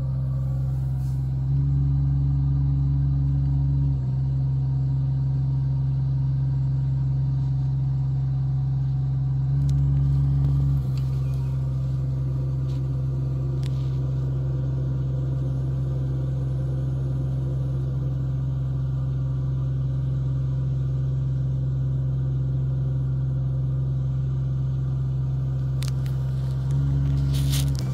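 Engine of a tracked compact crane running steadily with a low drone, speeding up briefly three times: about 2 seconds in, about 10 seconds in, and near the end.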